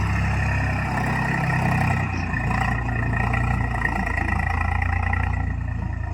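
Heavy diesel machine engine running steadily, with a thin high whine above it; the engine note shifts lower about two seconds in.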